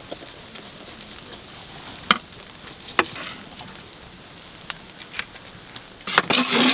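Fried vegetables tipped onto rice in a large aluminium pan and mixed in with a metal ladle, over a faint steady sizzle. Two sharp metal knocks come about two and three seconds in, and a louder clatter lasts about half a second near the end.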